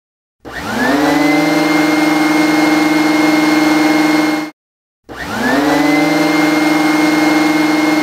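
Vacuum cleaner switched on, its motor whine rising as it spins up and then running steadily for about four seconds before cutting off. Half a second later it is switched on again and spins up the same way.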